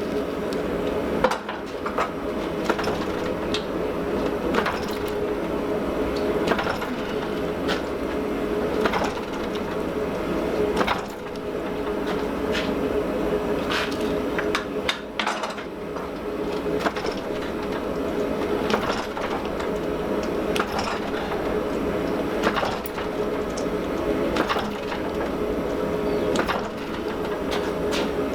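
Irregular dull blows on the hot steel forging, roughly one a second, over a steady droning hum from shop equipment.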